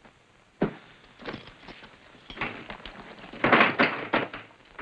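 A saddle and its gear being picked up and hefted onto a wooden rail: a sharp knock about half a second in, scattered knocks and rustling, then a louder clatter of thuds about three and a half seconds in.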